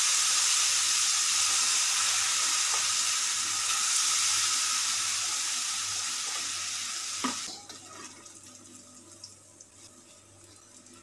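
Leftover tapioca batter frying in hot oil in a steel wok: a loud, even sizzle as the water in the batter boils off, fading slowly over several seconds. About seven seconds in there is a sharp click, and the sizzle drops suddenly to a faint crackle.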